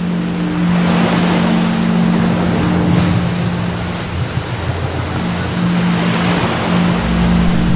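Ocean surf washing steadily, with a low steady hum that fades out and returns a few times.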